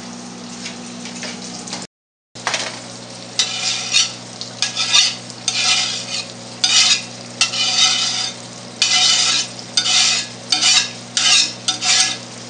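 Ground beef sizzling in a non-stick frying pan while a spatula stirs and scrapes through it, in a run of loud strokes about one or two a second from about three seconds in. A steady low hum runs underneath.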